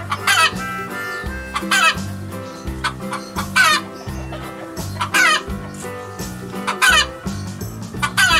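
Hen clucking, with a loud, short cackling call about every second and a half, over light background music.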